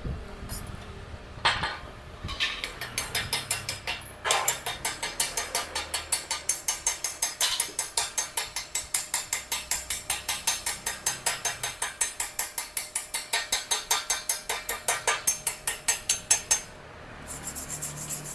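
Fresh MIG weld bead on thin steel box section being cleaned with quick, regular strokes of a hand tool, a rapid clicking-scraping rhythm of about five strokes a second that stops shortly before the end.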